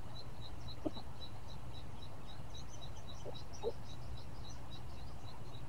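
A bird chirping in a quick, even series of short high notes, nearly four a second, with a second, higher-pitched chirping joining in for a couple of seconds midway. Under it runs a steady low rumble, with a couple of faint soft knocks.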